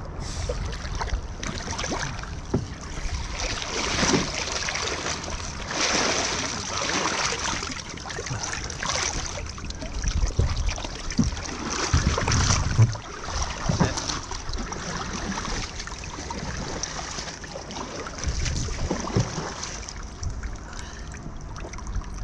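Canoe paddle dipping and pulling through calm lake water, with irregular splashes and water lapping against the canoe.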